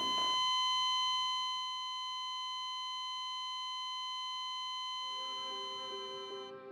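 A steady, high electronic tone with overtones, held for about six and a half seconds, dropping a little in level after the first second or two. Soft keyboard music with slow notes comes in about five seconds in.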